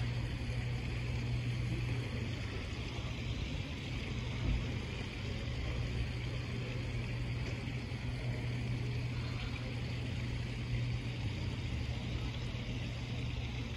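Steady low drone of a car driving slowly, engine and tyre noise, with a small bump about four and a half seconds in.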